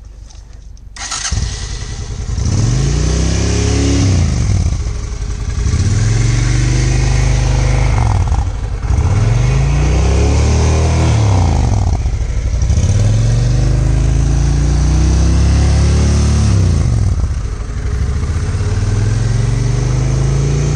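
A Honda V-twin cruiser motorcycle engine cranks and starts about a second in, then is revved up and let fall back to idle about five times in a row.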